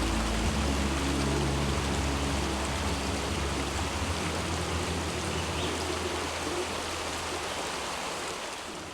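Steady rush of flowing water, a waterfall or stream, with low humming tones underneath that thin out over the first few seconds; the sound fades out at the end.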